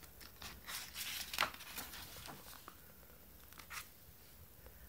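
Faint rustling and a scatter of small clicks and crackles, with a slightly louder click about a second and a half in.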